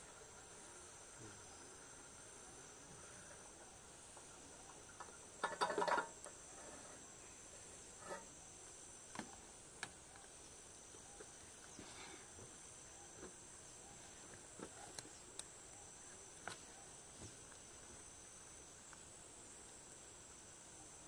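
Faint, steady, high-pitched insect chorus, with scattered light clicks and knocks. The loudest is a short clatter about five to six seconds in.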